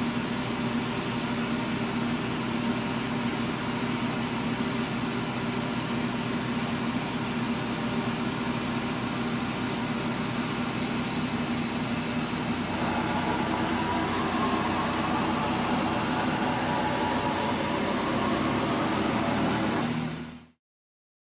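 1998 OKK PCV-55 CNC vertical mill running: a steady machine hum with a constant high whine. About two-thirds of the way through it grows slightly louder and fuller, and it stops abruptly near the end.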